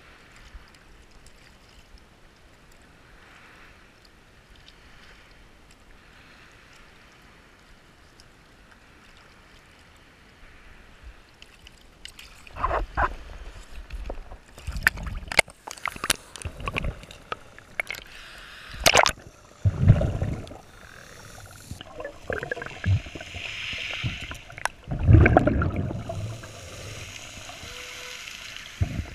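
Water sloshing, splashing and gurgling as a scuba diver goes under. The first half is only a faint steady hiss; from about halfway through come loud, irregular surges and sharp splashes.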